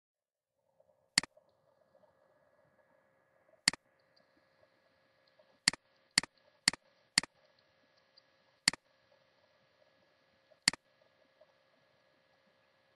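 Computer mouse button clicking eight times at uneven intervals, four of them in quick succession about halfway, over a faint steady hum.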